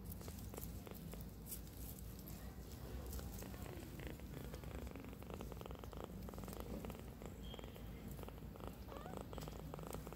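A tiny kitten purring steadily, a really loud purr, while its head is stroked.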